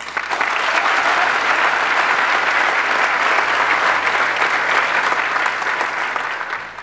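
Audience applauding: many hands clapping together, starting at once, holding steady and dying away near the end.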